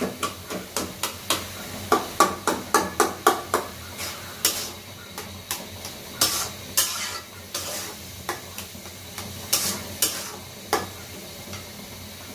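Metal spatula scraping and knocking against a metal karahi as mashed eggplant is stir-fried in oil, with a steady sizzle underneath. The strokes come in quick runs, most tightly packed about two to three and a half seconds in.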